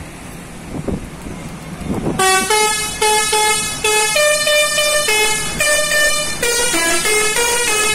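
Telolet multi-tone air horn on an intercity bus, starting about two seconds in and playing a quick, loud melody of short notes that change pitch every fraction of a second. Before it, only low traffic noise.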